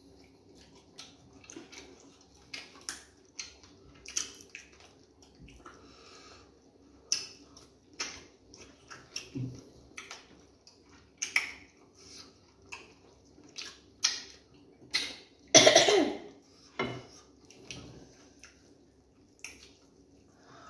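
Eating at a table: scattered small clicks and clinks of dishes and utensils mixed with mouth noises of eating. About sixteen seconds in comes one louder, longer throaty noise.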